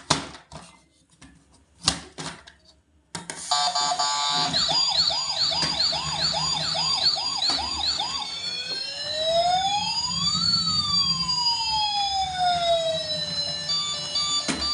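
A few sharp clicks, then about three seconds in a toy ambulance's electronic siren switches on. It starts as a fast warbling yelp and after several seconds changes to slower, overlapping rising and falling wails.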